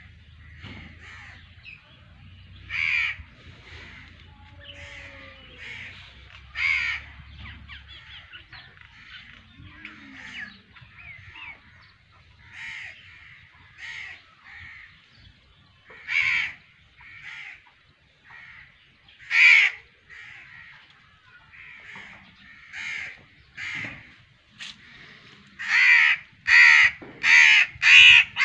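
A bird calling over and over: single loud calls a few seconds apart, then a rapid run of about seven calls near the end.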